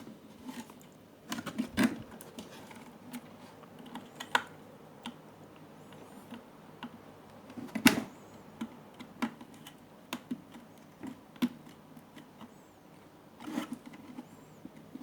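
Irregular light clicks and taps of tools and small parts being handled at an electronics repair bench, with a louder knock about two seconds in and a sharp click about eight seconds in.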